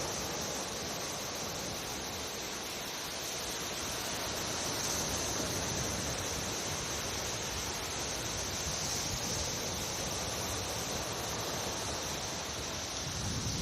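Steady hiss of sea surf and wind at the shoreline. A low wind rumble on the microphone comes in near the end.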